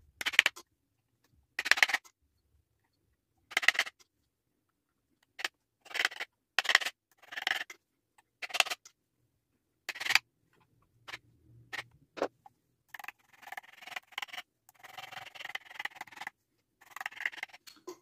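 Short metal scrapes and clicks on a vacuum cleaner motor's metal housing as its locking tabs are bent closed by hand: a dozen or so irregular strokes, coming closer together and longer in the last few seconds.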